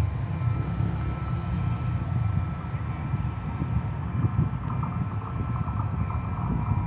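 Low, steady rumble of an approaching train of diesel-electric locomotives still some way off, mixed with wind on the microphone.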